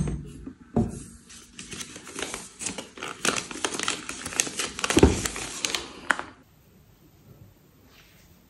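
Foil sheet-mask packets crinkling and crackling as they are handled in a cosmetic bag, a dense run of sharp crackles with a couple of dull knocks, stopping about six seconds in.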